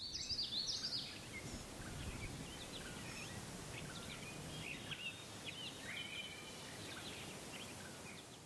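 Several birds chirping and calling over a steady background hiss. A quick run of high chirps in the first second is the loudest part, and scattered short calls follow.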